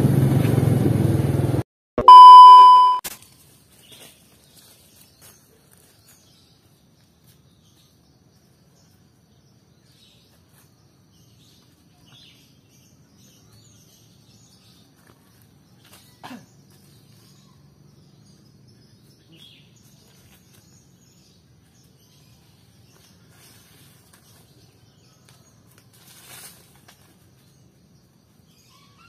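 Busy street-market noise that cuts off abruptly, then a single loud bell-like ding about two seconds in that rings out within a second. After it, quiet outdoor stillness with a few faint bird chirps and soft clicks.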